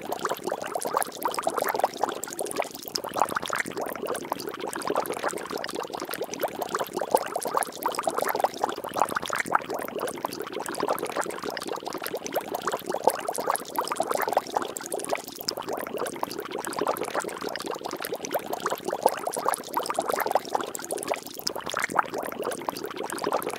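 Water splashing and bubbling steadily: a dense stream of small liquid plops and splashes, swelling and easing now and then.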